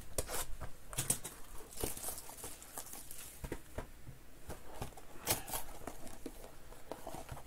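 Hands unwrapping and opening a sealed cardboard trading-card box: plastic wrap crinkling and tearing, with scattered light knocks and rustles of the cardboard.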